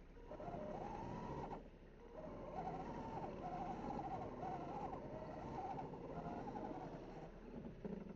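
1/10-scale Axial SCX10 RC crawler's electric motor and geared drivetrain whining in spurts as it crawls over a log and rocks, the pitch wavering with throttle and load. It stops for about a second roughly two seconds in, then resumes.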